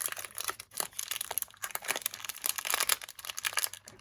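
The speed cube's inner wrapping crinkling and crackling as it is handled and pulled open by hand: a quick, irregular run of small crackles.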